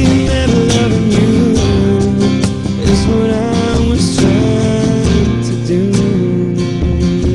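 Acoustic guitar strummed in a slow country-pop ballad, with a voice holding long sung notes over it.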